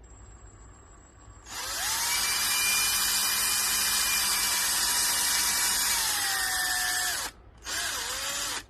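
Power drill spinning up and running steadily for about six seconds, its pitch sagging slightly near the end, then a second short burst. It is drilling a small 2.5 mm hole through the door handle's pin and into the handle body.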